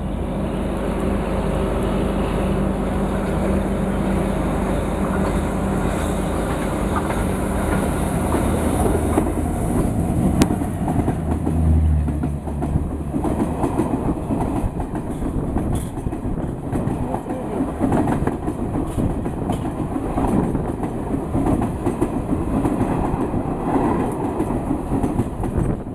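Running noise of a moving Indian Railways express heard from its coach doorway, with a steady low hum. About halfway through, an opposing Garib Rath express passes close alongside at speed, and its coaches rush by in a dense rattle of wheel clatter.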